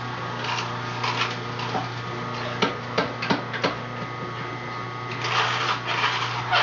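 Masticating juicer running with a steady low hum as green stalks are fed into it. A quick run of sharp clicks comes about halfway through, and a patch of rougher noise near the end.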